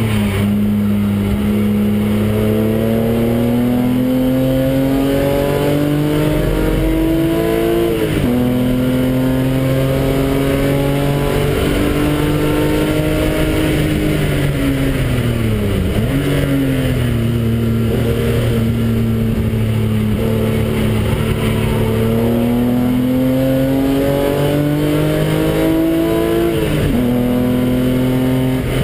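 BMW's engine heard from inside the cabin under hard acceleration, its pitch climbing through the revs with a sharp drop at an upshift about eight seconds in. It falls away as the car slows a little past halfway, then pulls up through the revs again with another upshift near the end.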